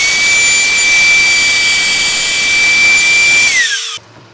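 Router in a lathe fluting guide running at full speed with a steady high whine, cutting a shallow flute along a softwood spindle. It is switched off about three and a half seconds in, and its whine falls as it spins down.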